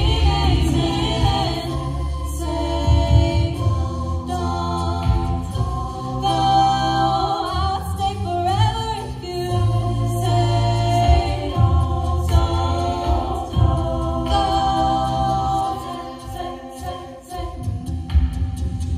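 Mixed-voice a cappella group singing through microphones and a PA: layered vocal harmonies over a strong sung bass line, with sharp percussive hits of vocal percussion.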